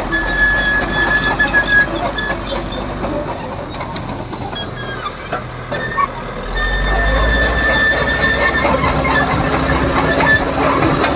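Caterpillar D4H crawler bulldozer at work: its diesel engine runs under the metallic noise of the steel tracks, with a steady high squeal coming and going. About six and a half seconds in the engine gets deeper and louder, as it takes on more load.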